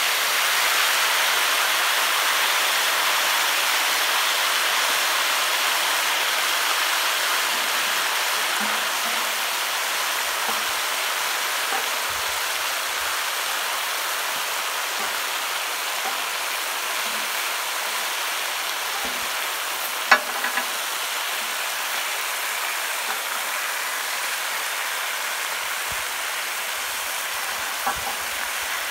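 Honey and white-balsamic marinade sizzling on a hot steel plancha, a steady hiss loudest at the start and slowly dying down. A single sharp click of a metal spatula on the plate comes about two-thirds of the way through, with a couple of lighter taps near the end.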